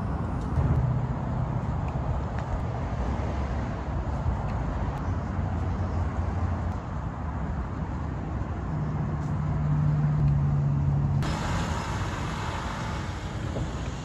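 Steady low rumble of motor vehicles and traffic, with an engine hum that swells a little before ten seconds in. About eleven seconds in the sound changes abruptly to a brighter, hissier roadside sound.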